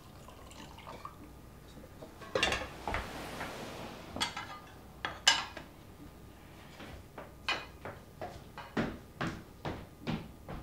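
Crockery and cutlery clinking and knocking as a breakfast tray is set with a cup, bowl and plate, with a soft hiss in the first half. In the second half comes a steady run of knocks about two a second: footsteps on a tiled kitchen floor.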